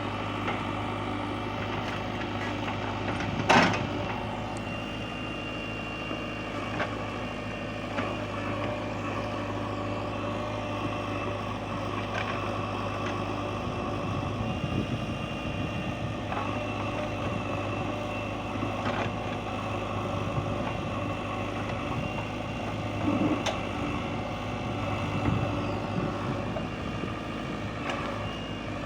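JCB backhoe loader's diesel engine running steadily at work, its low hum turning uneven about fourteen seconds in. A few sharp knocks sound over it, the loudest about three and a half seconds in.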